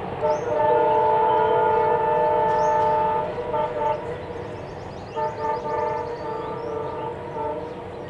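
Diesel locomotive horn of a WDG-3A, sounding one long blast of about three seconds, two short toots just after, then a run of short broken honks, over the rumble of the fast-passing train.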